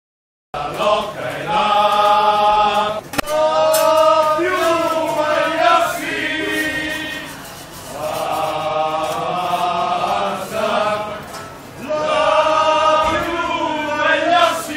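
A group of men chanting together in loud held notes, in phrases of a few seconds each, starting about half a second in.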